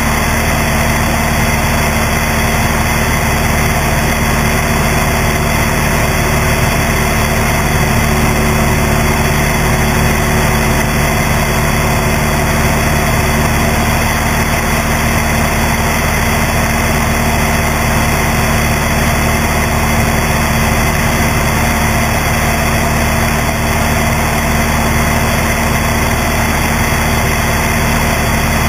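Cessna 172's piston engine and propeller droning steadily in level flight, with the slipstream rushing over the camera mounted out on the wing strut.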